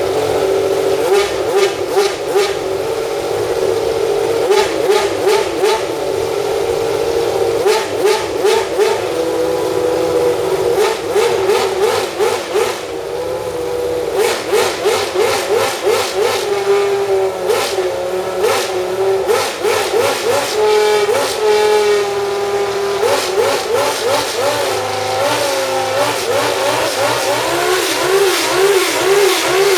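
McLaren-Honda MP4/5 Formula 1 car's Honda V10 being revved hard in repeated quick throttle blips, the pitch shooting up and dropping back over and over, with a few short spells held at a steady high rev.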